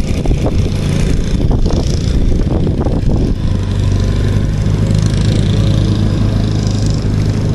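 Small engine running steadily at an unchanging pitch, a low even hum, with a few light knocks in the first three seconds.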